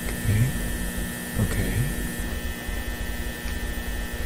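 Steady electrical hum of fluorescent ceiling lights: a high buzzing tone over a lower drone and rumble, with light hiss.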